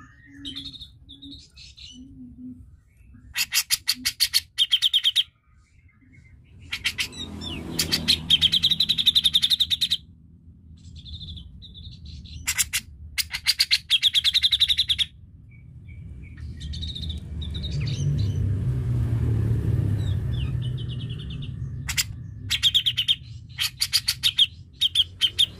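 Grey-cheeked bulbul (cucak jenggot) singing several loud phrases of fast, stuttering repeated notes, a few seconds apart. A low rumble rises and falls behind the song, strongest in the second half.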